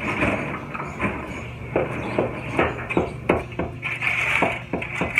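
A metal shovel scraping and scooping broken concrete rubble on pavement, with irregular sharp clinks and knocks that come more often in the second half. A low steady hum runs underneath.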